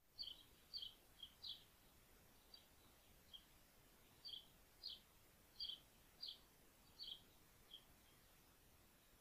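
A small bird chirping faintly: about a dozen short, high chirps spaced irregularly, roughly one a second, over a faint steady hiss.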